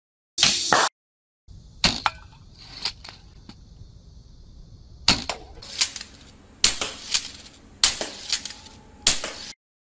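Rubber-band-powered repeating compound bow shooting BBs: a string of about ten sharp cracks, some in pairs about half a second apart, over a low steady background. A half-second burst of noise comes before them.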